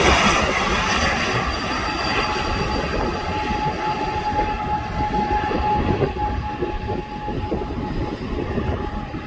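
Jet airliner engines: a steady rumble with a thin high whine, slowly fading as the aircraft moves away.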